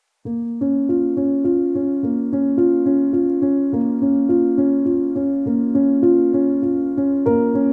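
Background instrumental music: a steady, even run of notes that starts suddenly just after the beginning.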